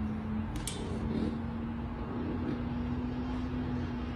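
Steady low hum with a faint held tone, and two light clicks about half a second in.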